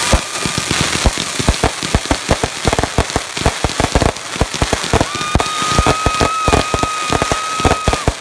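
Several Brothers High Falutin 500-gram firework cakes firing together: a dense, rapid crackle of crackling stars mixed with the thuds of shots launching. A steady high tone is held from about five seconds in until near the end.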